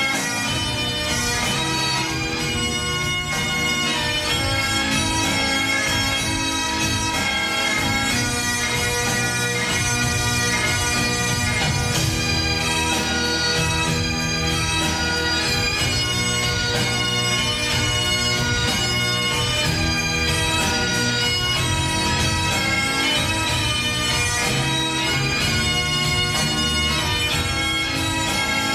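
Highland bagpipes playing a tune over their steady drones.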